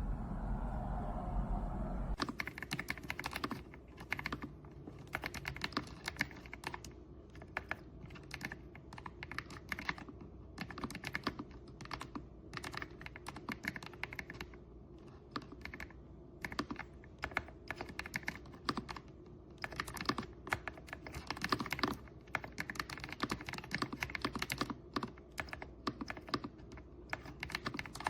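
Fast typing on an AULA F108 Pro full-size mechanical keyboard: dense runs of key clacks with short pauses, starting about two seconds in. Before the typing, a low steady rumble.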